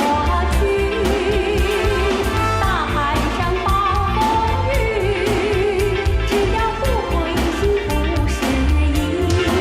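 Mandarin pop song: a singer holding long notes with vibrato over a backing track with bass and a steady beat.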